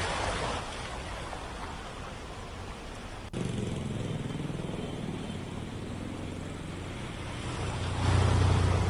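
Floodwater rushing along a flooded street as a steady hiss. After a sudden change about three seconds in, a vehicle's engine rumbles as it moves through the water, growing louder near the end.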